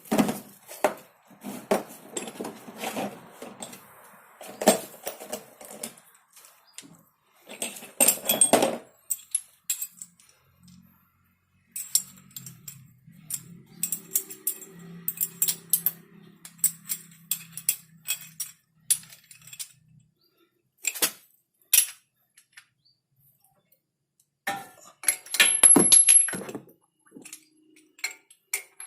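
Metal tools and brake parts clinking and clattering in irregular bursts, with short quiet gaps, while working on a car's front brake caliper.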